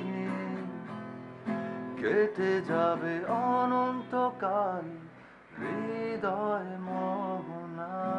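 A man singing to his own acoustic guitar accompaniment, with the guitar strummed under the melody. The singing breaks off briefly about five seconds in, then resumes.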